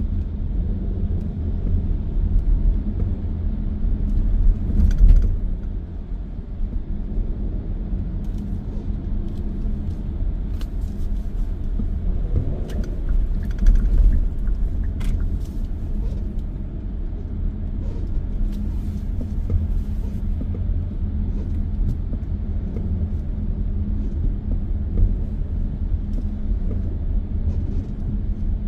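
Steady low rumble of road and tyre noise from a car driving at expressway speed, heard inside the cabin, with a few faint clicks scattered through it.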